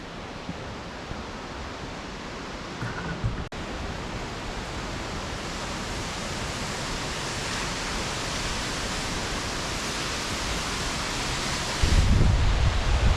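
Steady rushing noise of running water or wind in the open, slowly growing louder and brighter, with a brief click about three and a half seconds in. Near the end, wind starts buffeting the microphone with a low rumble.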